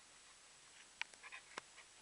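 Near silence broken by a few faint clicks and taps from computer hardware being handled, about a second in and again shortly after.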